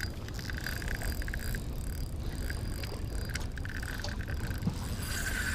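Fishing reel's drag clicking rapidly as a hooked lake trout pulls line off it, in stretches during the first second and a half and again near the end, over a steady low wind rumble on the microphone.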